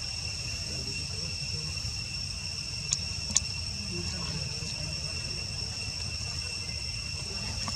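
Steady, high-pitched drone of insects, with a low rumble beneath and two short sharp clicks about three seconds in.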